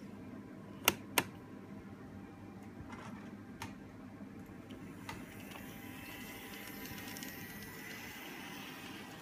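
Kato N scale model locomotive running along the track under power, its small motor and wheels giving a faint steady hum with a thin whine that comes up in the second half. Two sharp clicks about a second in, a third of a second apart, are the loudest sounds, with a few fainter ticks later.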